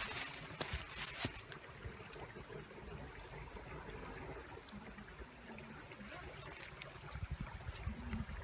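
Shallow rocky creek trickling, its water low in autumn. A few sharp clicks in the first second or so, and low bumps near the end.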